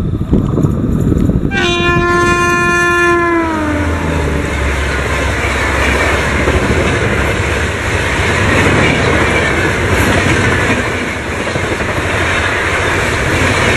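WAP-5 electric locomotive's horn sounding for about two seconds, its pitch dropping as the locomotive passes at speed. Then comes the steady rush of the Rajdhani's coaches, wheels running on the rails as the train goes by.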